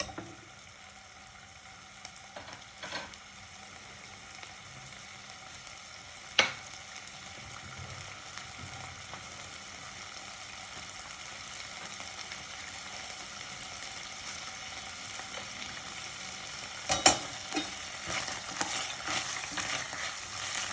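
Chopped ginger and green chillies sizzling in hot oil in a pan. The sizzle grows slowly louder. A utensil knocks against the pan a few times, sharpest about six seconds in, with a burst of stirring clatter near the end.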